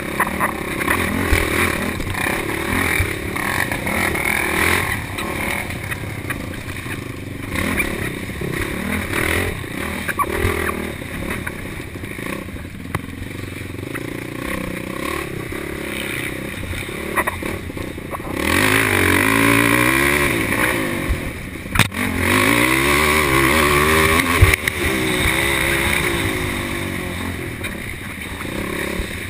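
Racing quad (ATV) engine running hard on a rough trail, revving up and down with the throttle, louder and more sharply rising and falling in the last third. A few sharp knocks and clatter from the bumpy ride cut through.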